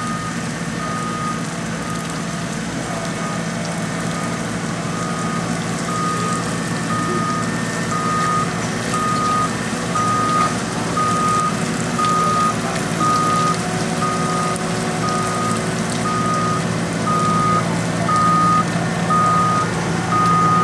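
Back-up alarm on paving equipment beeping about once a second over the steady drone of diesel construction machinery, getting somewhat louder toward the end.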